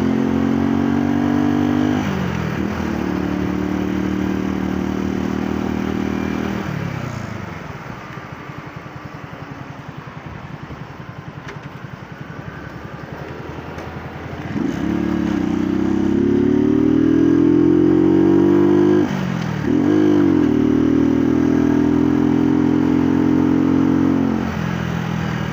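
Motorcycle engine pulling through the gears, easing off about seven seconds in and running low and steady, then revving up again from about fourteen seconds with a gear change near nineteen seconds, and easing off near the end.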